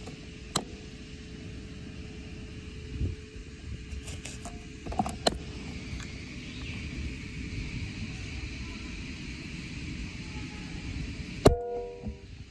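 Steady outdoor wind noise with a few faint clicks, then near the end a single sharp shot from a .22 PCP air rifle, followed by a brief metallic ring.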